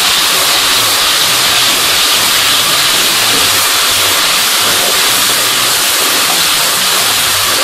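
Garlic paste sizzling steadily in hot oil in a steel kadai as it is stirred with a slotted spoon, frying toward light brown.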